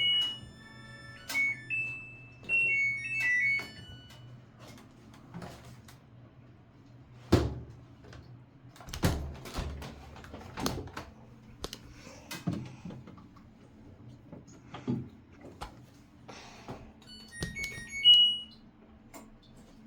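LG top-load washing machine playing its electronic beep melody, followed by several dull clunks a second or two apart and a shorter beep tune near the end, over a steady low hum.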